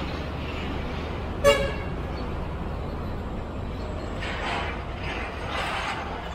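Steady rumble of truck and motorbike traffic, with one short vehicle horn toot about a second and a half in. Passing vehicles swell and fade near the end.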